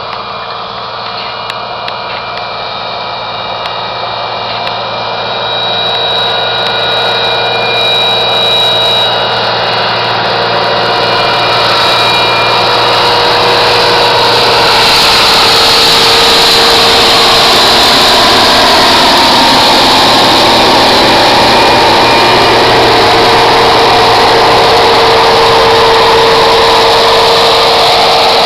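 New Holland TV140 tractor on a four-track conversion, its diesel engine running steadily as it pulls a snow drag. The sound grows louder over about the first fifteen seconds, then holds steady and loud.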